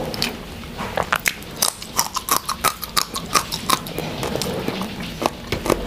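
A person chewing food close to a clip-on microphone, with a quick run of short clicks and smacks of the mouth. The clicks are densest from about a second in until near the end.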